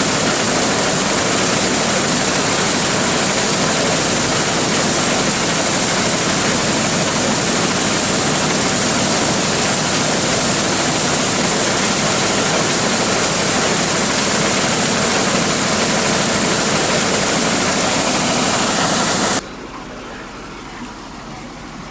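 Large engine-driven corn sheller running steadily with a loud, even rushing noise and a high hiss. The noise cuts off suddenly about nineteen seconds in, leaving a much quieter background.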